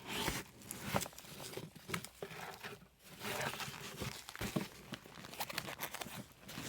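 Packaging being unwrapped by hand: irregular crinkling and crackling, with short bursts of tearing.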